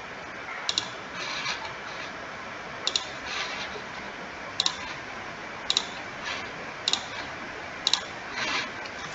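Computer mouse button clicking six times at uneven intervals. Each click is a sharp pair of ticks, followed shortly by a softer brush, over a steady background hiss.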